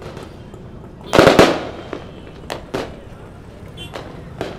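Fireworks going off: a loud cluster of sharp bangs about a second in, then three single sharp pops spaced out over the following few seconds.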